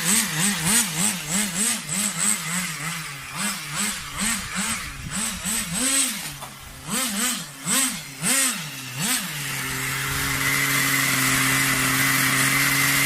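Nitro RC car engine blipped again and again on the throttle, its pitch rising and falling with each blip, then settling to a steady idle about nine seconds in.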